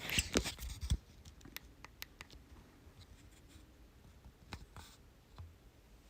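Hands handling a trading-card box and its packs: scratchy rustling for about the first second, then scattered light clicks and taps.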